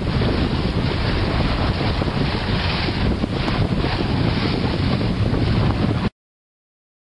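Heavy wind noise on the microphone and water rushing past the hull of a J/105 sailboat sailing through chop, which cuts off suddenly about six seconds in.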